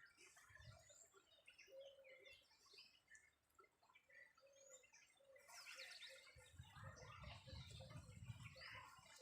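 Several small birds chirping and calling at once, faintly, with a denser burst of quick falling chirps a little past the middle. A low rumble joins in for the last few seconds.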